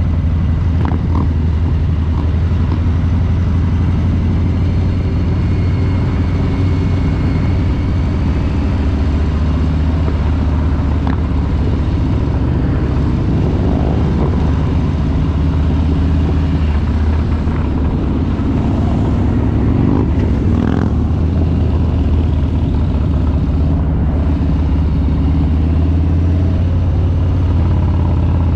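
Harley-Davidson Street Bob 114's Milwaukee-Eight 114 V-twin running under way, a loud, steady, low exhaust note with small changes in pitch around the middle.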